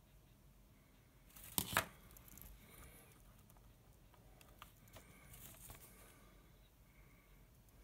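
A brief scraping rustle, the loudest sound, about one and a half seconds in, then faint clicks and rustles as multimeter test probes and a small wire connector are handled on a bench.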